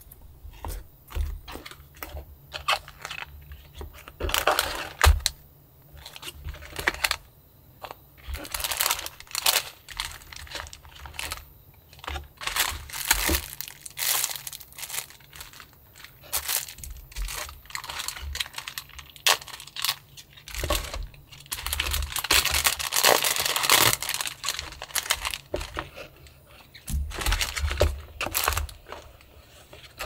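A cardboard ramen-kit box torn open along its tab, then plastic-wrapped packets of noodles and toppings crinkling and rustling as they are pulled out and handled, in irregular bursts with small clicks and taps between them.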